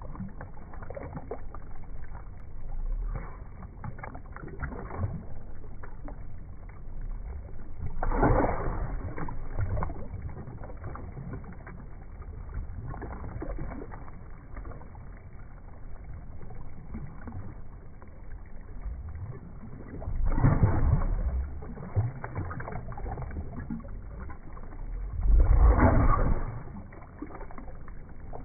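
Pool water splashing and bubbling as a dog snaps and mouths at air bubbles rising against the pool wall, with three louder splashing bursts about eight, twenty and twenty-five seconds in.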